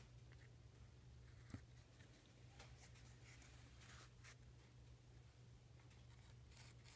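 Near silence with faint scratching and a small click about one and a half seconds in: a thread-locker tube and hex keys being handled at the screws of a rifle chassis.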